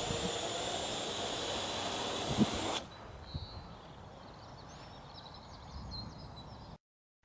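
Parrot AR.Drone quadcopter's four electric rotors whirring with a high whine as it sets down, with a short knock as it touches down. The motors cut off suddenly about three seconds in, leaving faint outdoor background with a few high chirps.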